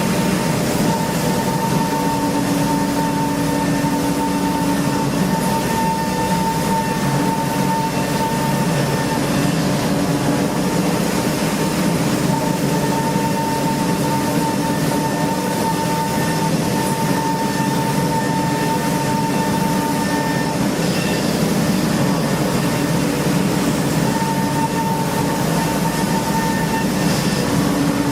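CNC machine running while machining an engine block: a steady mechanical noise with a high whine and a lower hum that each cut in and out several times.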